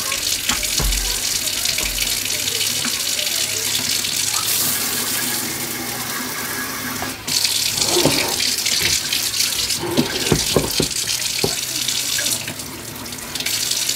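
Water running from a newly installed pull-down kitchen faucet into a stainless sink on its first test run. The rush steps louder about halfway through, drops near the end and comes back as the single lever is moved, with a few light knocks in between.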